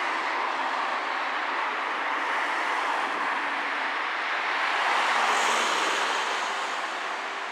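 Road traffic noise: a car passing close by on the street, swelling to its loudest about five seconds in and then fading away.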